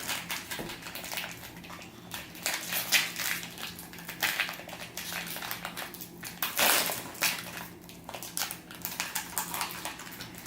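Packaging of a box of baseball trading cards being opened and handled: irregular crinkling and rustling, with a faint steady hum beneath.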